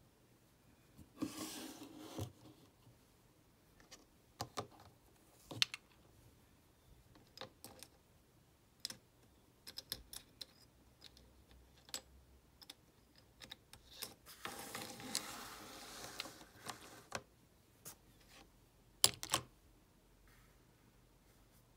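Small art supplies being handled and set down on a wooden desk: scattered light clicks and knocks of plastic bottles, jars, a paint tube, a pen and watercolour half pans. Two longer stretches of rubbing and rustling come about a second in and again past the middle.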